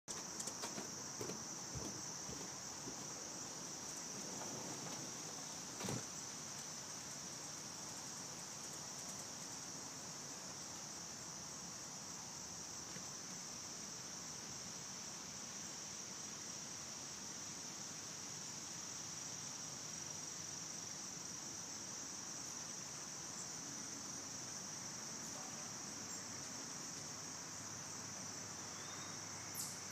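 Steady high-pitched insect chorus that goes on without a break, with a soft thump about six seconds in.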